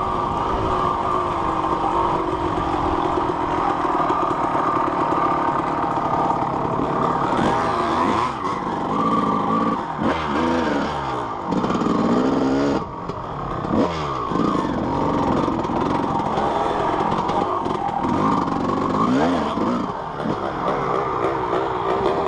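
Yamaha YZ250 two-stroke single-cylinder dirt bike engine riding a trail, its pitch rising and falling repeatedly as the throttle is opened and closed, with a brief drop in loudness about 13 seconds in.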